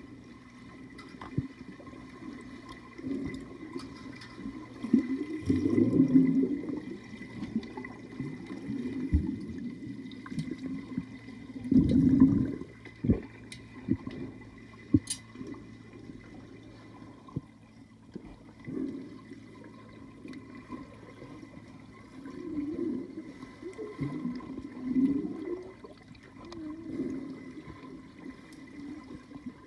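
Pool water heard from underwater: muffled rushing and bubbling from swimmers moving and kicking with fins. It comes in irregular swells, the loudest about six and twelve seconds in, over a faint steady hum.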